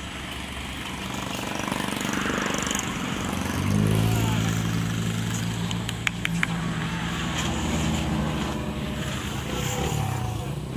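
A motor vehicle's engine running with a steady low hum that starts about four seconds in and fades away near the end, over roadside traffic noise. A few short high clicks come just past the middle.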